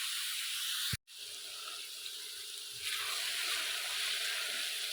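Potatoes and moong dal frying in oil and spices in a pan, sizzling steadily. The sizzle cuts out for an instant about a second in, comes back quieter, and grows fuller again near the three-second mark.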